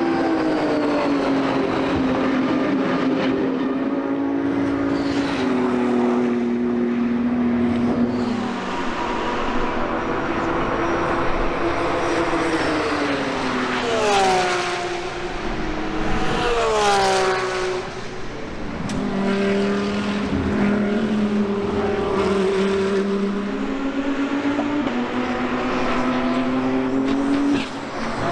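GT3 race cars running at speed, with the BMW M4 GT3's turbocharged straight-six among them and several engine notes heard at once. Two cars pass close about 14 and 17 seconds in, their engine notes swooping down in pitch as they go by.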